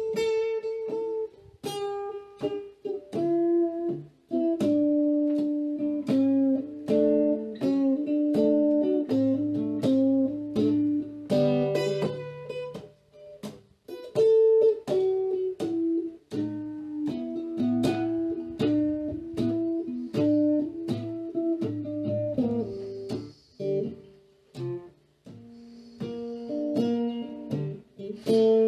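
Black archtop electric guitar played alone: a picked blues break of single-note lines and short chords, each note struck sharply and stepping from pitch to pitch.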